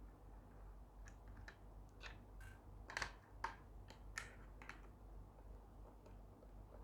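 Faint, scattered small clicks and snaps of a plastic gas lighter's casing being prised open, the sharpest few about halfway through.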